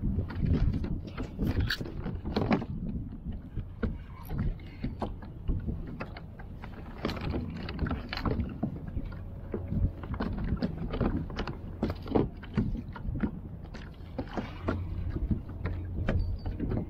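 Water slapping against a fishing kayak's hull under a steady low rumble, with many scattered knocks and clicks from rod, reel and landing net being handled on board.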